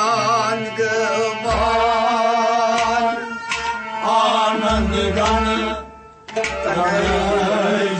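Kashmiri Sufi song: a man singing an ornamented, wavering melody over plucked-string and hand-drum accompaniment. The music thins out briefly about six seconds in, then resumes.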